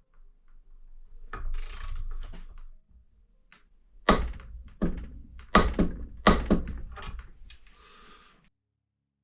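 Workbench handling noise: a scraping rustle, then four sharp knocks about 0.7 s apart and a lighter fifth, before the sound cuts off suddenly.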